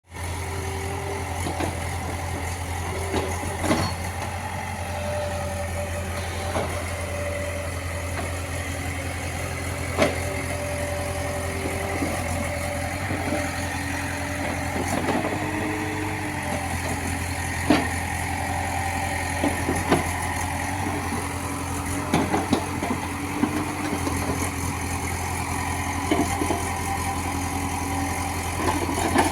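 Heavy diesel engine of construction machinery running steadily, with short whining tones coming and going and occasional sharp knocks or clanks.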